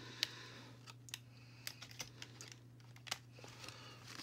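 Faint, scattered light clicks and taps of hands handling a plastic Barbie doll and its packaging, over a low steady hum.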